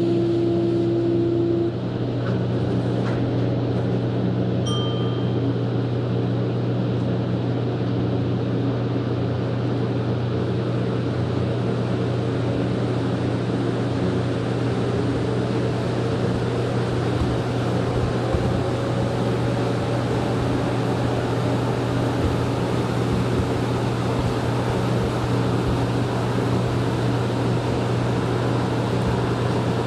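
Steady running noise of a rubber-tyred Mexico City Metro NM-79 train heard from inside the car, a constant low hum under a rushing noise. A higher steady tone cuts off about two seconds in.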